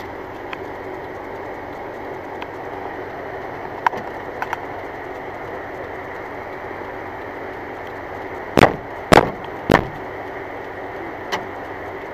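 Steady hum of a car heard from inside the cabin, with a few light clicks and three loud knocks in quick succession about eight and a half to ten seconds in.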